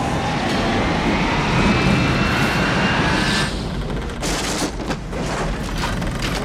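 Film sound of a sudden squall hitting a sailing ship: a loud rush of storm wind with a howl rising in pitch, then from about four seconds in a clatter of crashes and bangs as loose gear is thrown about in the cabin.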